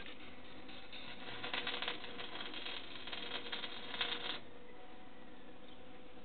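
Stick arc welder crackling and spitting as a weld is run on a steel window grille frame, stopping suddenly about four and a half seconds in.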